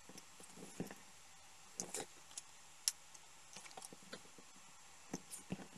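Faint, scattered rustles and small clicks of fingers handling small folded vellum paper hearts and pressing them onto a sticky foam adhesive pad.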